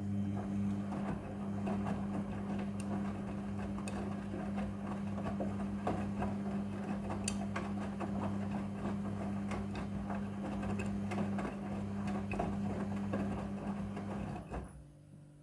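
Midea front-loading washing machine running its wash: the motor hums steadily as the drum turns, with many small clicks and knocks from the tumbling load. The motor stops near the end.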